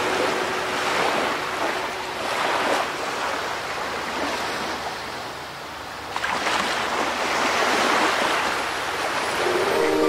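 Water sloshing and rushing around a GoPro Hero 3 Black in its waterproof housing, held just under the surface while snorkeling. The wash swells and eases, with a sudden surge about six seconds in.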